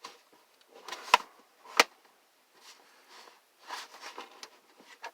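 Sharp clicks and knocks with soft scraping as the plastic housing of a space heater is handled while a screw is driven into it; two clicks, about a second in and just under two seconds in, are the loudest.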